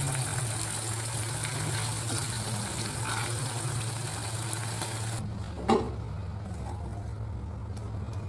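Chili peppers and tomatoes sizzling in hot oil in a small saucepan as a spatula stirs them. The sizzle cuts off abruptly about five seconds in, and then comes a single sharp knock of the pan against a stone mortar (cobek) as the half-cooked chilies are tipped out.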